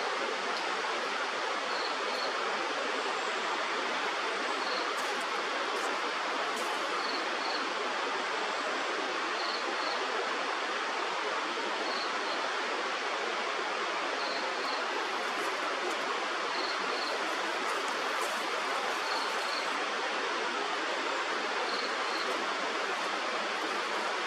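Steady rush of stream water, with a faint high double chirp repeating about every two seconds.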